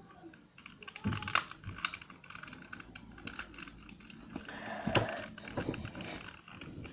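Irregular small plastic clicks and scratches of fingers and fingernails working at a 2×2 Rubik's Cube while peeling off its sticky stickers, with a louder knock about a second in and another near five seconds.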